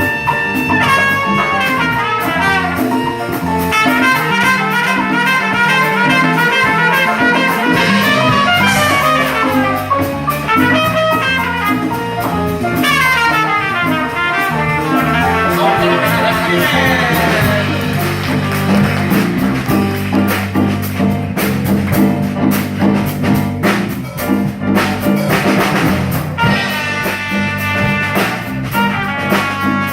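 Live trumpet playing quick melodic runs in an upbeat jazz tune, over a backing with drum kit and bass.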